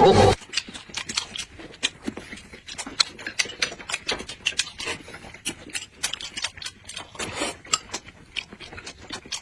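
People chewing and smacking their lips while eating, a dense irregular run of wet clicks and smacks, with one louder burst right at the start.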